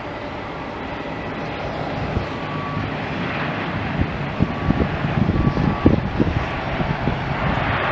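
ATR twin-turboprop airliner at takeoff power on its takeoff roll, a steady engine and propeller noise that grows louder, with uneven low rumbling thumps from about four seconds in.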